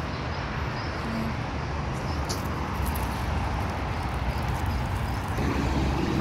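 Steady street noise with traffic running by, heavy in the low end. A steady low hum joins near the end.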